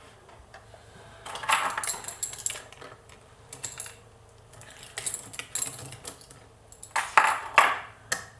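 Metal clinking and rattling of a Pollux 7 lock and its parts being handled, in several short clusters of sharp clicks.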